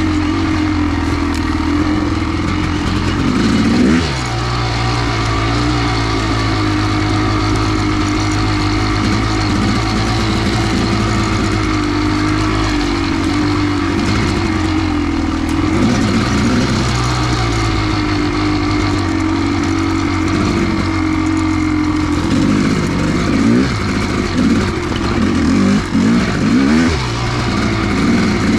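Kawasaki KX500's two-stroke single-cylinder engine running under way, its revs mostly steady. About four seconds in the revs rise and drop off sharply. Near the end there is a run of quick rev rises and falls.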